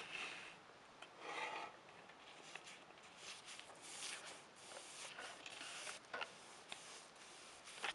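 Paintbrush stroking paint onto soffit boards overhead, a repeated brushing rub, each stroke a fraction of a second long, with sharp clicks near the start and just before the end.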